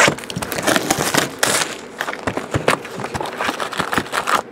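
Plastic shrink-wrap being torn and crinkled off a sealed trading-card box, a dense run of crackles and rips, followed by the cardboard box being opened.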